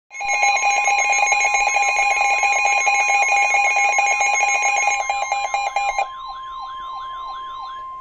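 Several NOAA weather alert radios going off together for a severe thunderstorm warning: a steady single-pitch warning tone under fast electronic beeping. About six seconds in, the beeping stops and a repeating falling warble continues over the steady tone.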